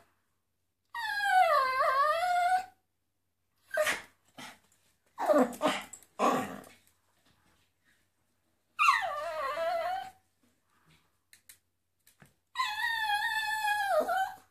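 Miniature poodle howling, or 'singing': three long drawn-out howls whose pitch wavers, dipping and rising, with a few short yips in between.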